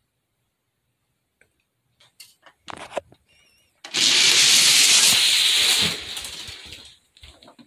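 Six die-cast Hot Wheels cars rolling together down a six-lane orange plastic track: a loud rolling rattle that starts suddenly about four seconds in, holds for about two seconds and then fades. A few light clicks come before it as the cars are set at the start, and a few knocks near the end.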